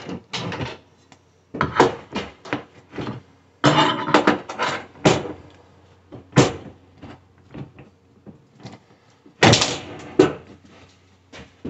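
Scraping, clicking and knocking as an old 1970s electric coil cooktop is worked loose from its countertop: fingers and a long metal tool prying at the steel edge and the hidden mounting clips. A few short scraping bursts come among sharp clicks and taps.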